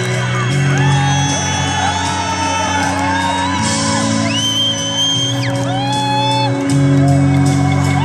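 A concert crowd whoops, shouts and whistles over a droning intro track of long held chords from the arena sound system. Several piercing whistles rise and hold, the clearest about four seconds in.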